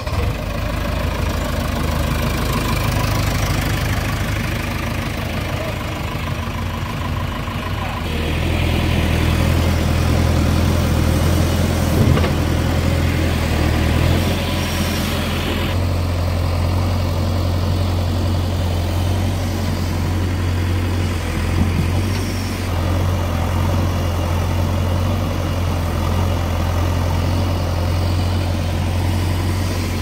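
JCB 3DX backhoe loader's diesel engine running steadily with a deep hum. It gets louder and fuller about eight seconds in as the backhoe works, digging and loading mud.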